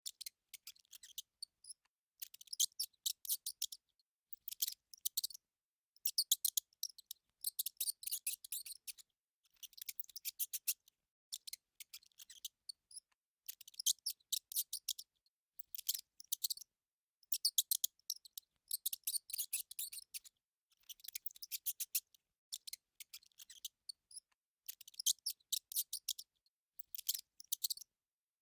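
Rat sounds: repeated bursts of rapid, high-pitched clicking and crackling, each lasting a second or two with short pauses between.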